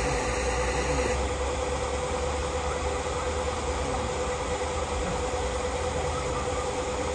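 Steady mechanical running noise with a constant hum over a low rumble, like a motor or machine running without change; it cuts in abruptly and stops abruptly.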